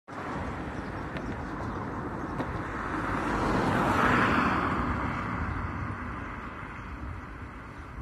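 A motor vehicle passing on a road: tyre and engine noise swells to its loudest about four seconds in, then fades away, over a steady low rumble.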